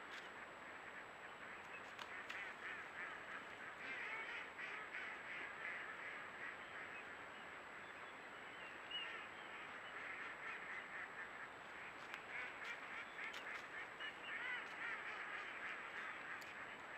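A large flock of ducks calling continuously, many voices overlapping into one steady chorus.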